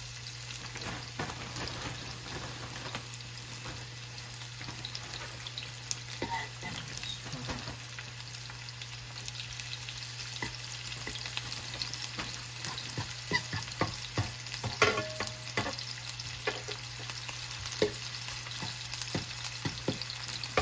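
Cornstarch-dredged beef strips shallow-frying in hot vegetable oil in a skillet: a steady sizzle with scattered pops and clicks, busier in the second half.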